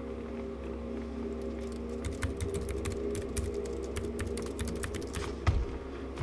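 Rapid, irregular typing on a computer keyboard, starting about two seconds in, over a steady low hum.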